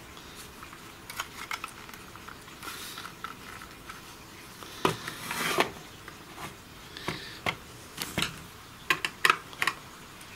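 Hard plastic parts of a Fluke 1652 tester's case being handled and pried apart: scattered clicks, knocks and scrapes, with a longer scrape about five seconds in and a quick run of sharp clicks near the end.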